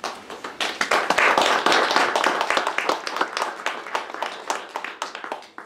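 Audience applauding. The applause rises quickly to its loudest in the first couple of seconds, thins out, and stops abruptly near the end.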